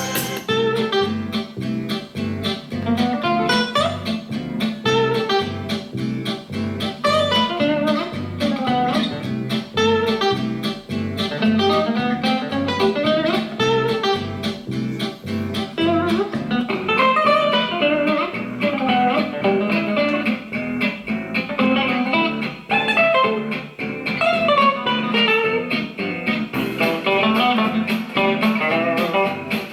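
Guitar-led music with a steady bass beat, played back through a small Bluetooth speaker for a sound test.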